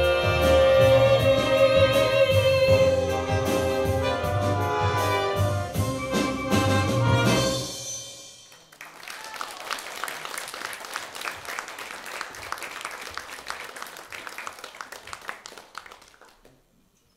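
A variety orchestra with strings, saxophones and brass and a female singer finishes a song on a long held note. The music dies away about eight seconds in. An audience then applauds, quieter than the music, and the applause fades out near the end.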